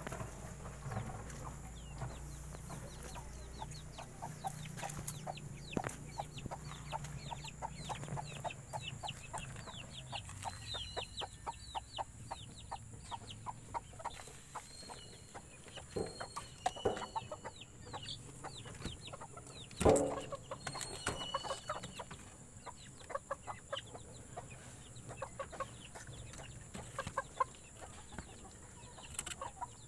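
Rooster clucking in its cage, in short repeated sounds, with one loud knock about two-thirds of the way through.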